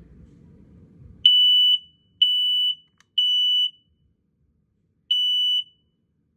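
1276 smoke alarm's piezo horn sounding its alarm during a test. It gives three steady, shrill half-second beeps about a second apart, a pause, then a fourth beep starting the next round: the temporal-three evacuation pattern.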